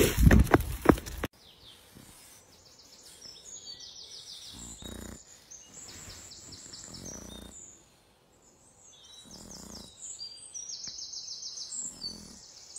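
About a second of loud rushing noise with a few knocks, then small birds singing: many short, repeated high trills and chirps, fainter, with a few soft low rumbles underneath.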